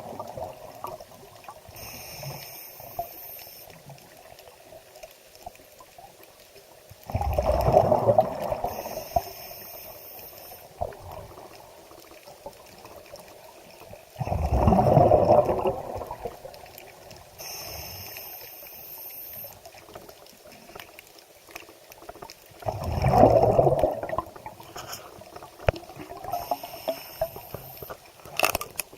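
Water surging four times, about every seven to eight seconds, each surge lasting a second or two, with a fainter high hiss in between.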